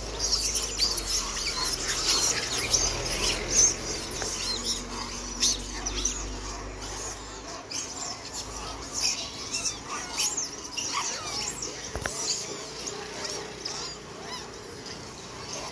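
Rhesus macaques making many short, high-pitched squeaks and chirps as they crowd around for carrots.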